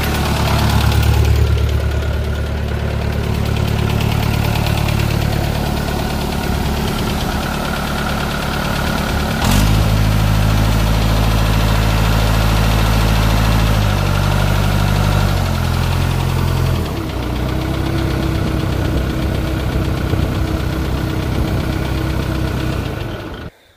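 Waldon 6000 articulating loader's engine running. Its speed steps up about a third of the way in, drops back in stages, and the sound cuts off suddenly near the end.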